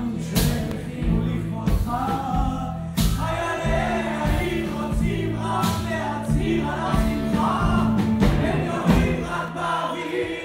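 Live rock band playing a song, with sung vocals over bass and drum hits.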